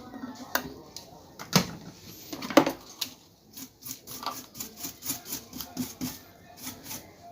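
Clicks and taps of hand tools and parts being handled on a repair bench, with two louder knocks about one and a half and two and a half seconds in, then a run of light clicks about two or three a second.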